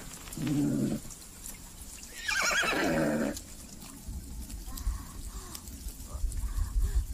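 Unicorn whinnying like a horse: a short low call, then a louder, longer quavering whinny about two seconds in. A low rumble takes over in the second half.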